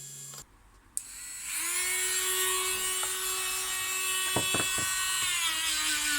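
Electric grinder fitted with a felt polishing wheel, switched on with a click, its motor whine rising to speed and running steadily. About five seconds in it is switched off and the whine slowly falls as the wheel winds down.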